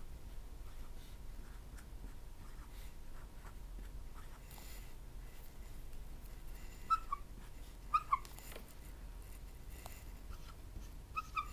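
Dry-erase marker writing on a whiteboard: faint short scratching strokes, then a few brief high squeaks, one about seven seconds in, two near eight seconds, and two more near the end.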